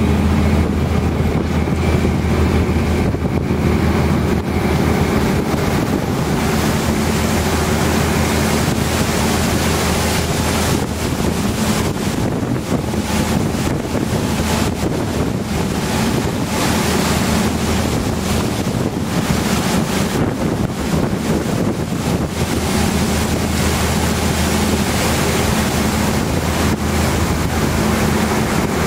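Boat engine droning steadily underway, mixed with water washing past the hull and wind gusting on the microphone.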